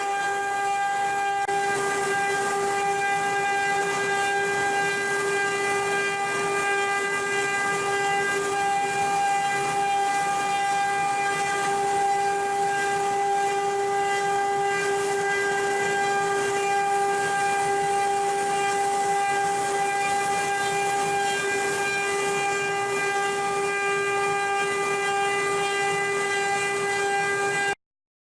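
CNC wood-carving router spindle running at a constant speed: a steady high whine over a hiss. It cuts out abruptly near the end.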